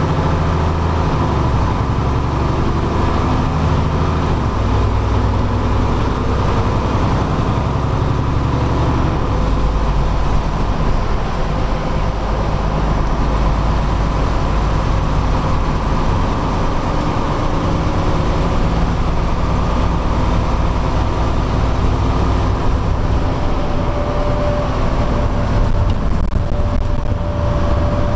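Gardner 6LXB six-cylinder diesel of a Leyland Olympian double-decker heard from inside the lower deck, its note stepping up through the ZF gearbox's gear changes in the first ten seconds, then running steadily at speed with road noise. A thin whine comes in near the end.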